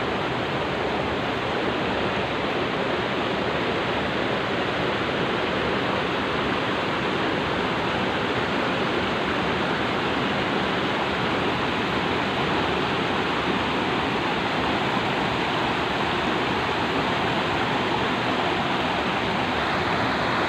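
Rocky mountain river rushing steadily over boulders and small cascades.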